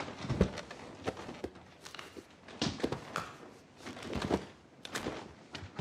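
Joints cracking during manipulation: an irregular series of sharp pops and clicks, roughly one every half second.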